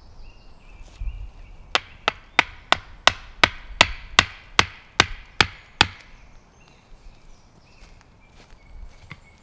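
A hatchet striking a wooden stake, about a dozen quick, sharp blows at roughly three a second, stopping about two-thirds of the way through.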